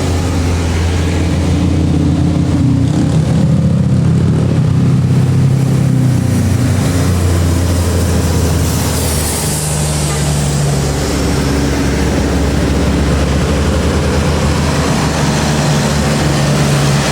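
Diesel engines of a convoy of tour buses pulling uphill past the roadside, a loud, steady low drone that swells a few seconds in and again after about ten seconds as the buses go by.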